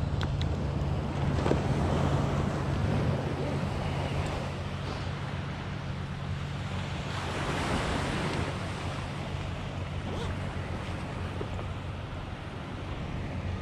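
Small waves washing up a sand beach in slow swells, with wind rumbling on the microphone.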